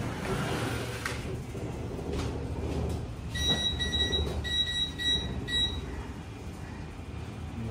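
A steady low machine rumble, with a run of about five short electronic beeps in the middle.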